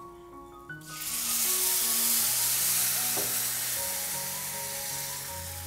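Milk poured into a hot kadai of ghee-roasted semolina and ragi vermicelli, sizzling and hissing as it hits the hot pan. The sizzle starts about a second in and slowly dies down as the milk cools the pan. Soft background music plays underneath.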